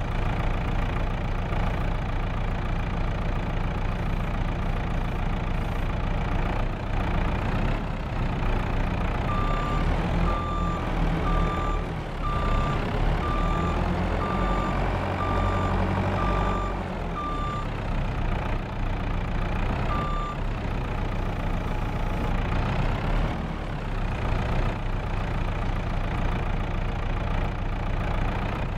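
Truck engine running steadily, with a reversing alarm beeping about once a second for some eight seconds partway through and one more beep a little later.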